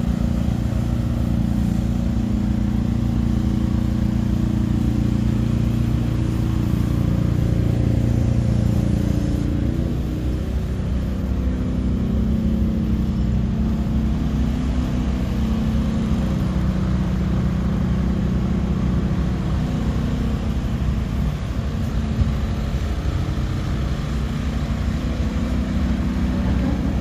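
Kubota diesel engine of an SMC TL-90 lighting tower running steadily, with a low, even engine note whose tone shifts a little about ten seconds in.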